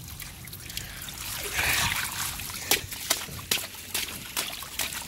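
Flip-flops splashing through shallow water on concrete: a swish of water about a second and a half in, then a quick run of splashing steps, about two or three a second.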